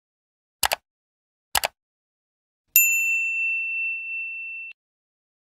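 Subscribe-button sound effect: two quick clicks, then a single high bell ding that rings for about two seconds and cuts off suddenly.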